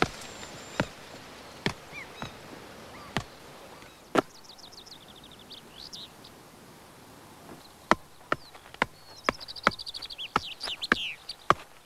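A football being juggled on the feet: a series of dull kicks at uneven intervals, faster and more frequent in the second half. A songbird sings a short trilled song twice in between.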